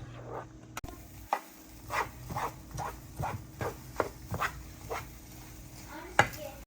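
A utensil stirring and scraping in a cooking pan: a run of short strokes, about three a second.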